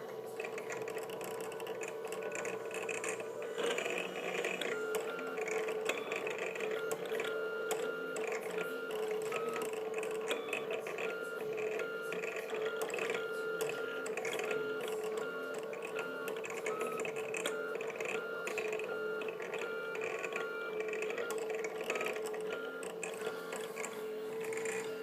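Sumpod Basic RepRap 3D printer at work, its stepper motors whining in short pitched runs that change pitch every fraction of a second as the print head moves back and forth, over a steady hum.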